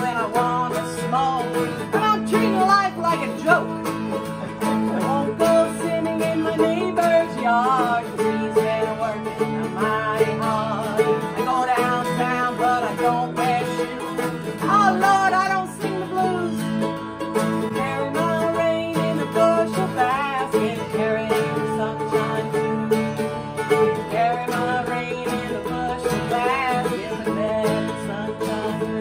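A mandolin and a steel-string acoustic guitar strummed together while a woman sings a blues song.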